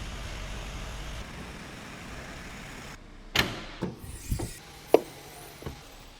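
A steady background hiss, then about five sharp knocks and clicks over a couple of seconds, the loudest one near the end.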